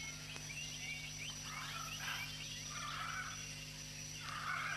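Faint tropical rainforest ambience: a steady high insect whine with many short chirps, and warbling animal calls about two seconds in, again a second later, and near the end.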